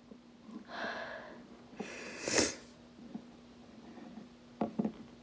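A short, loud, breathy sneeze-like burst from a person about two seconds in, with a softer breathy sound just before it. Near the end come a few sharp clicks of a hard plastic wolf figurine being set down on a wooden floor.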